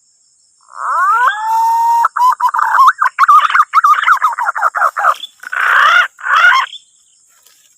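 Green pigeon (punai) call: whistled notes that glide in pitch at first, then warble rapidly for a few seconds, ending with two breathier, harsher notes.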